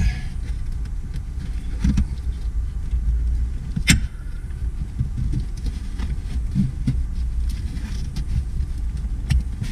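Small clicks and rattles of a car battery hold-down strap and its hardware being handled and fitted around the battery, with one sharp click about four seconds in, over a steady low rumble.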